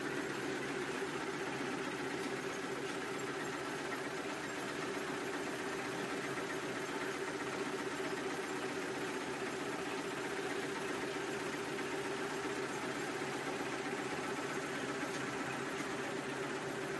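Four-line 1/6-fold napkin tissue folding machine running at a steady pace: a continuous, even mechanical hum.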